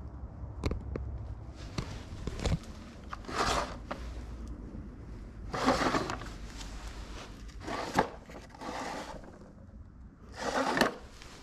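Scattered scrapes and rubs a few seconds apart, with a few sharp clicks, from someone moving about and handling an old wooden treadle sewing machine cabinet.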